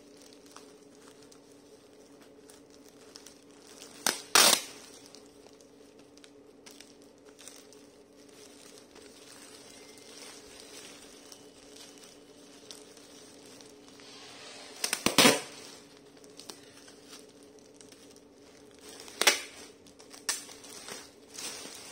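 Packing tape pulled off a handheld tape dispenser in a few short, loud rips: about four seconds in, around fifteen seconds, and again near nineteen and twenty seconds. Clear plastic wrapping crinkles under the hands between them.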